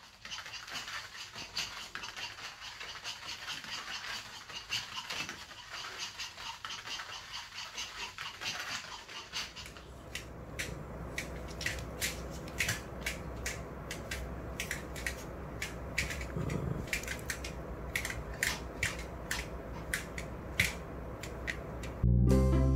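Small dogs' claws clicking and tapping on the floor as they scuffle and play: rapid, irregular clicks, thick in the first half and sharper and more spaced out in the second, over a low steady hum.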